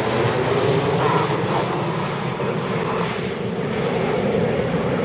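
Jet roar from the Red Arrows' formation of BAE Hawk jets flying past, steady and easing slightly as the formation draws away.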